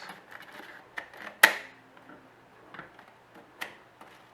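Sharp clicks and light ticks of a floppy drive's metal and plastic mechanism being worked by hand. The loudest click comes about one and a half seconds in and another about three and a half seconds in.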